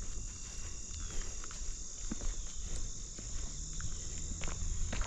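Steady high-pitched insect chorus, crickets by their sound, with scattered footsteps and rustles of someone walking through marsh vegetation.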